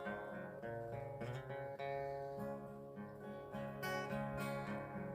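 Acoustic guitar strumming a country song accompaniment, chords struck at a steady, unhurried pace with low bass notes under them.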